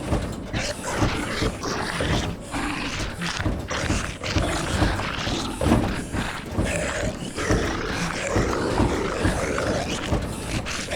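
Layered horror sound effects: growling zombie groans over a dense, irregular clatter of rattling, creaking and thuds.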